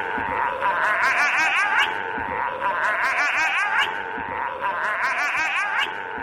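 A high-pitched giggling laugh played as a loop: the same short run of rapid rising-and-falling 'ha' notes repeats about every second and a quarter.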